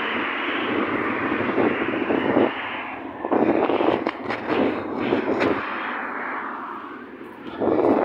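Road traffic passing close by: a steady roar of engines and tyres that swells several times as vehicles go past.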